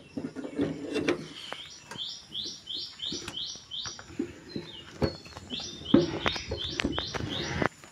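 A bird calling in two runs of quick, descending high notes, about four a second, over sharp knocks and clatter from work on the tiller; everything cuts off suddenly near the end.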